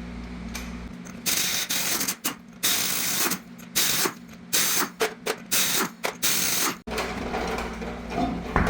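Lug nuts being loosened with a 21 mm socket: a run of short, sharp mechanical bursts, several close together, starting about a second in and stopping near the seventh second.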